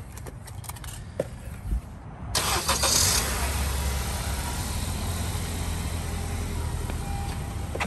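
A car engine comes on suddenly about two and a half seconds in and keeps running with a steady low hum.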